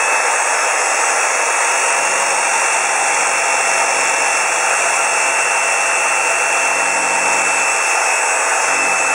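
Scroll saw running at a steady speed, its motor and blade noise even throughout with a constant high whine, as it shakes an HDMI cable pressed against it in a vibration test.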